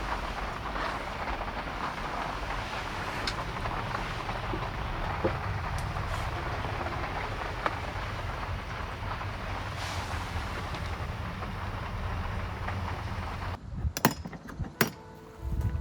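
Steady rain and road hiss over the low rumble of a vehicle moving through heavy rain. It cuts off abruptly about 14 seconds in, followed by two sharp clicks.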